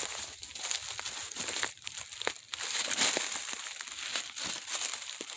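Irregular crunching and crinkling of footsteps through dry leaf litter on a forest trail.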